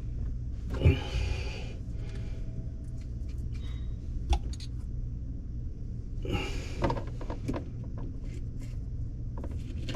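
A few knocks and short scraping rustles, typical of PVC drain pipe and fittings being handled and fitted, over a steady low hum.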